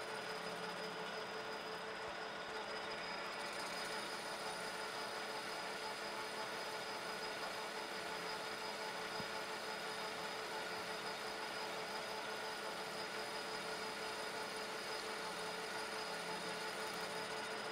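Metal lathe running at a steady speed with a steady whine, its tool bit taking a turning cut across the rim of a model steam engine flywheel.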